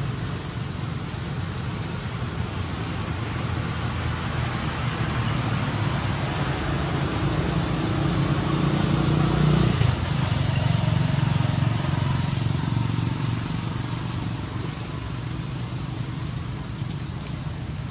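Steady outdoor background noise: a low rumble under a constant high-pitched hiss, with no calls from the monkeys. The rumble grows a little louder about eight seconds in and eases off just before halfway.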